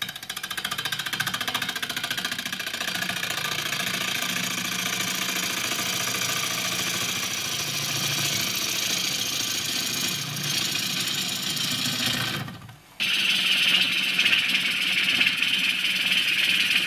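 Gouge cutting across the face of a wood blank spinning at about 900 rpm on a Record Power Coronet Herald lathe: a steady rough hiss of the cut over the lathe's low hum. It breaks off for a moment about three-quarters of the way through, then resumes louder and brighter.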